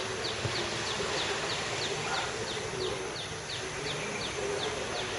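A bird calling a fast run of short, high notes, each dropping in pitch, about three a second, over the steady wash of small waves breaking on the beach.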